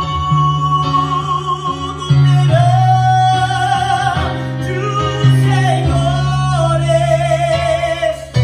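A man singing a Portuguese-language hymn, holding long notes, with an electronic keyboard playing sustained chords underneath.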